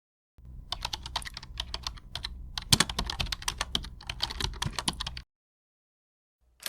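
A rapid, irregular run of light clicks and taps that starts about half a second in and cuts off abruptly about five seconds in.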